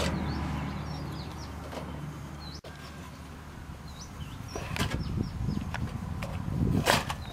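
A kitchen knife chopping raw beef into cubes and knocking on a wooden chopping board, a few sharp knocks with the loudest near the end, over a low steady hum.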